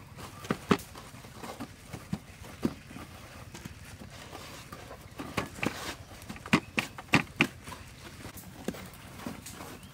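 Irregular light taps and soft knocks as breaded chicken legs are handled and set down on a metal baking tray, with a cluster of sharper clicks about five to seven seconds in.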